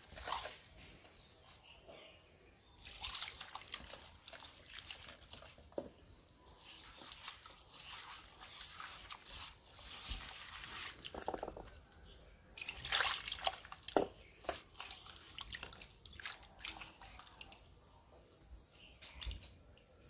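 Hands squeezing and turning raw tuna chunks with spices and water in a clay pot: wet squelching and small clicks in irregular bursts.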